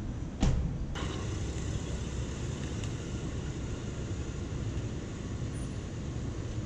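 Ford Fusion sedan's engine running with a steady low rumble in a concrete parking garage, after one sharp thump about half a second in.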